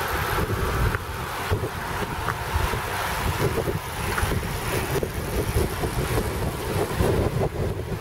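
Wind buffeting the microphone of a camera moving at cycling speed: a steady, fluttering low rumble.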